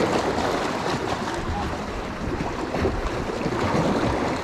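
Water sloshing and splashing against the side of a small boat, with wind buffeting the microphone.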